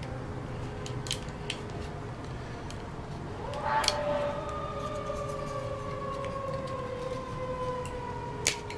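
A siren rises in pitch about three and a half seconds in, then falls slowly and steadily. Small sharp clicks and knocks of parts being handled come now and then.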